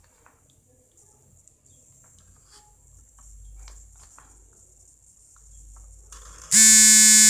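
Faint scratches of a felt-tip marker on paper, then near the end a sudden loud, steady tone of one pitch, like a horn or buzzer, lasting under a second and cutting off abruptly.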